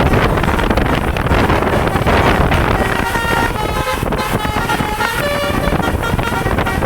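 Bus 'telolet basuri' musical air horn playing a quick run of short stepped notes of changing pitch about halfway through, over a heavy rush of wind on the microphone and traffic.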